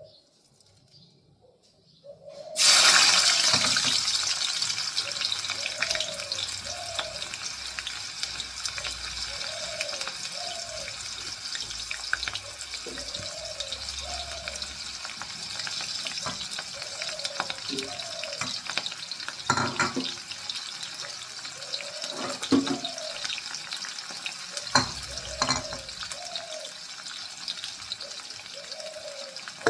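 Katla fish frying in hot oil: a sizzle starts suddenly about two and a half seconds in, loudest at first, then settles into a steady sizzle. Occasional clicks of a utensil against the pan.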